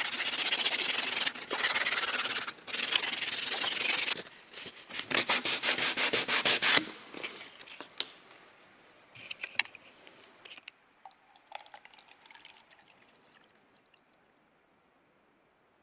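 Sanding by hand with abrasive paper on the old hammer in quick back-and-forth strokes, which get faster before stopping about seven seconds in. A few light clicks and taps follow, then the sound dies away.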